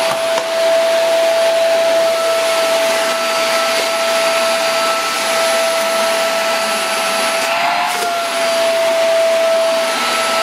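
Woly cyclonic vacuum cleaner running, a steady whine over a loud rush of air; the pitch lifts briefly about eight seconds in.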